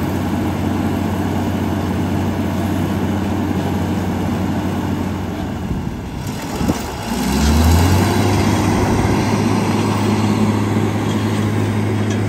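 1997 Panien PR265.10E 4x4 sander truck's diesel engine running steadily. About six seconds in it dips briefly, then the revs rise and it carries on running louder.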